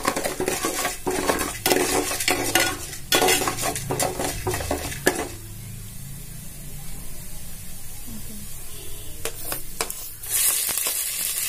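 A perforated steel ladle scrapes and clinks against a metal pot as it stirs spices and dals sizzling in hot oil. The stirring eases off about halfway through, leaving a quiet sizzle. About ten seconds in, chopped ginger and garlic drop into the oil and the sizzle jumps louder.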